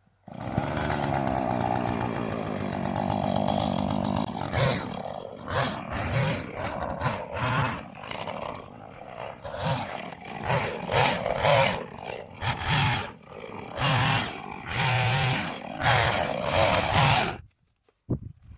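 Husqvarna two-stroke chainsaw running steadily for about four seconds, then revved up and down in about a dozen quick surges, and cut off near the end.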